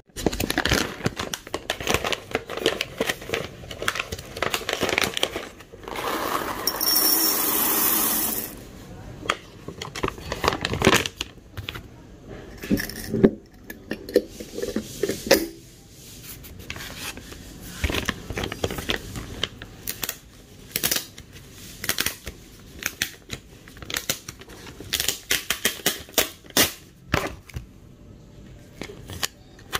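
Roasted whole coffee beans clattering against a glass swing-top jar as they are poured in and handled, many small clicks and rattles. About seven seconds in comes a steady hiss of about two seconds.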